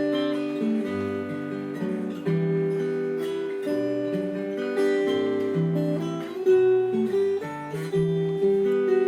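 Solo acoustic guitar played fingerstyle: a slow melody over ringing, sustained chords, with bass notes that change about every half second to a second.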